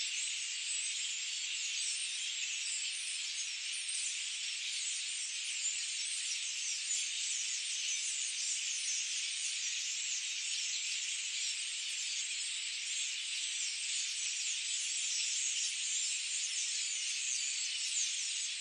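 Dense forest bird chorus: many birds chirping at once in a continuous, high-pitched wash of overlapping short calls, with no low sound beneath it.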